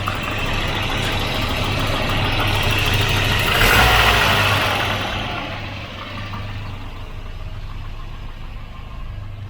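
Car engine running, with noise that swells to a peak about four seconds in and then fades, like a car passing or pulling away. A steady low hum continues underneath.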